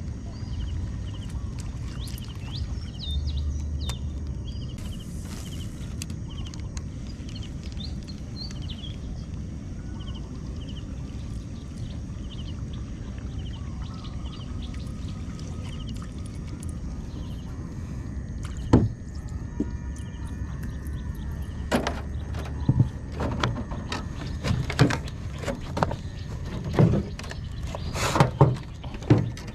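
Birds chirping over a steady low rumble, then in the last third a string of sharp knocks and bumps from a small paddle boat.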